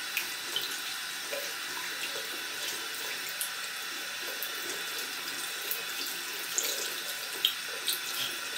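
Bathroom sink tap running steadily, water splashing into the basin and onto a kitten being washed, with small scattered splashes and drips.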